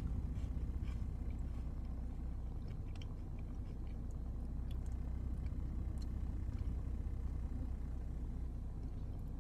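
A person chewing a crunchy cheese puff, with small crunches scattered through the first six seconds or so, over a steady low rumble inside a car.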